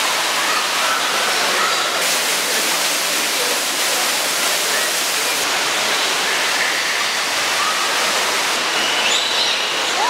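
Water cascading down an indoor waterfall, a steady loud rush, with faint bird chirps here and there that come more often near the end.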